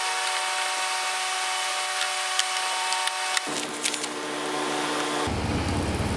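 A plastic welder's hot triangular foot scraping and rubbing as it works melted zip-tie filler into a high-density polyethylene canoe hull, with a few light clicks. Underneath is a steady hiss and hum that changes abruptly twice.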